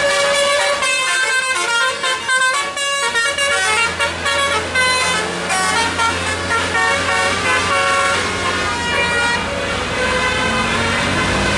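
Bus telolet horn, a multi-note musical air horn, playing a quick melody of short, changing notes. A steady engine hum runs beneath it through the middle.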